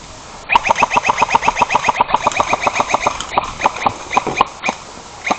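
Airsoft gun firing a rapid burst of about eight shots a second for some two and a half seconds, then a string of slower, spaced shots.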